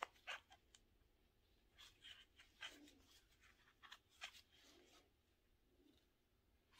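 Faint scratching and light ticks of a crochet hook working white acrylic yarn, pulling loops through for single-crochet decreases, in irregular small strokes.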